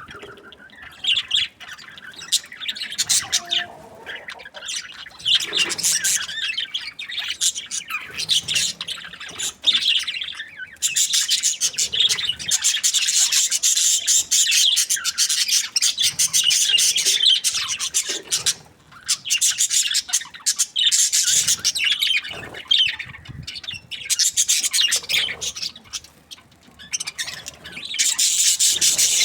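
A flock of budgerigars chirping and chattering together, a dense, continuous high-pitched twittering that grows louder and busier partway through.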